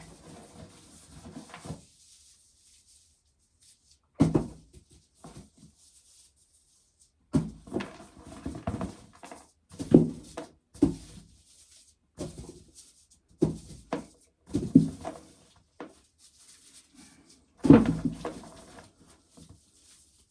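Intermittent handling noises: short knocks and rubbing in bursts a second or two apart, with quiet gaps between them.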